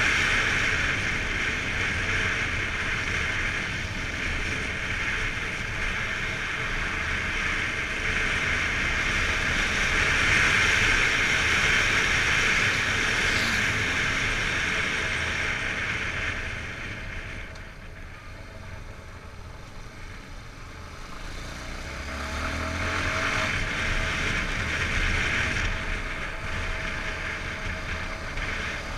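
Steady wind rush over the microphone of a Yamaha XTZ 250 Lander single-cylinder motorcycle on the move, with its engine faintly underneath; the rush eases off for a few seconds past the middle, then builds again.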